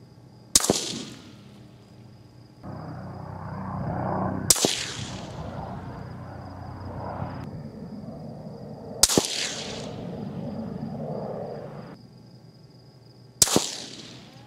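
Four single rifle shots from a suppressed 6.5 Creedmoor precision rifle, spaced about four and a half seconds apart, each a sharp crack that rings off quickly.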